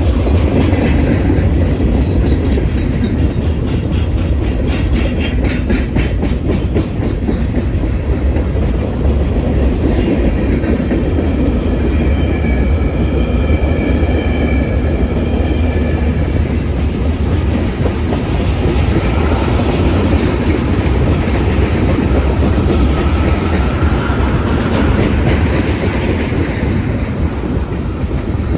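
A train rolling past close by, its wheels clicking steadily over the rail joints. About twelve seconds in, the wheels squeal for a few seconds.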